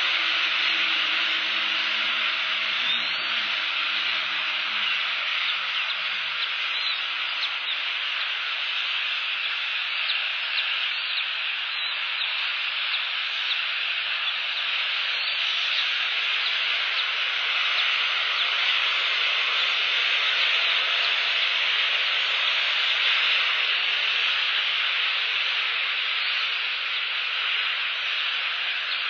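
Steady rain falling on a bald eagle nest and the nest camera's microphone, a constant even hiss.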